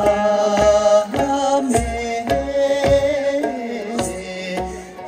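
Music: a song with a steady drum beat, a little under two beats a second, under a held melody line that bends in pitch in places.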